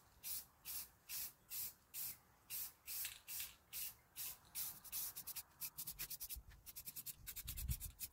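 Aerosol spray paint can spraying in short hissing puffs, about two a second, turning to quicker, shorter puffs from about five seconds in.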